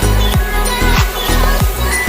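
Background music with a steady beat and deep bass drum hits that drop quickly in pitch, several a second.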